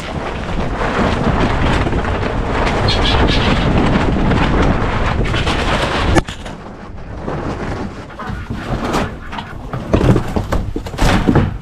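Wind buffeting the microphone in a winter storm, with rustling as a guinea fowl is handled into a tote. The wind is loudest for the first six seconds and ends in a sharp knock, after which it drops to quieter gusts and rustles.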